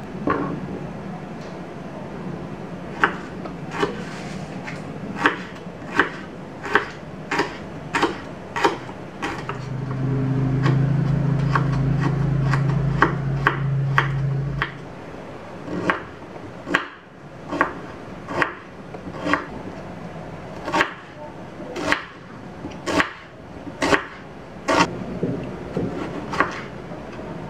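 Kitchen knife slicing shallots, garlic and tomato on a wooden cutting board: a run of sharp knife taps on the board, roughly one to two a second. For about five seconds in the middle a steady low hum runs underneath.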